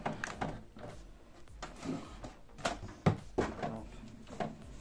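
HP DeskJet 2720 all-in-one inkjet printer starting up just after being switched on, its mechanism giving a series of irregular clicks and knocks.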